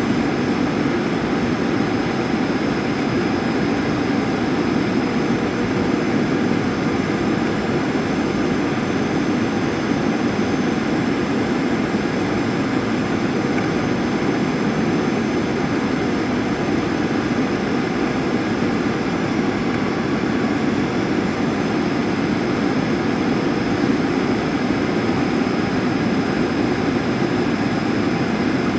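Steady cabin noise inside a Boeing 737 airliner in flight: a constant low rush of airflow over the fuselage blended with the jet engines' hum, with no change in level.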